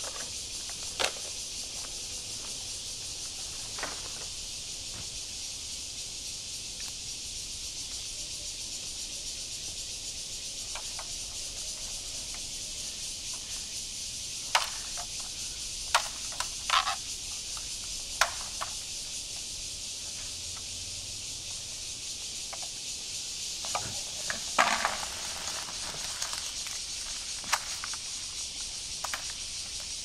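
Steady high-pitched hiss of forest insects, with scattered sharp knocks and cracks of a machete cutting and handling bamboo poles, several close together midway and again about three quarters through.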